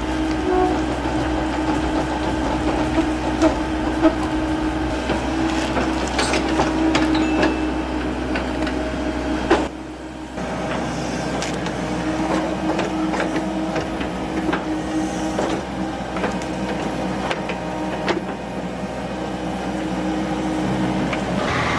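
A heavy machine's engine running steadily, with scattered sharp knocks and clanks. The sound drops out briefly about ten seconds in, then carries on.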